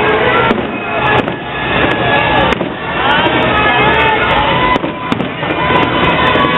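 Fireworks going off: several sharp bangs a second or more apart over a continuous loud crackle and rumble.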